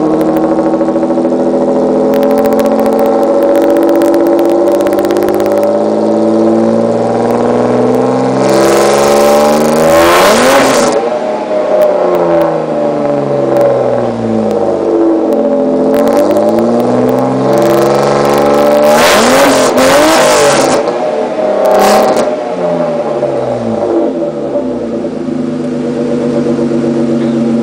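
Tuned BMW 2.8i straight-six engine of a rally Land Rover Defender, heard close to its exhaust outlet, being revved repeatedly: the revs climb to high peaks about ten and twenty seconds in, with a short blip just after the second, each time falling back to a lower steady speed. Very loud.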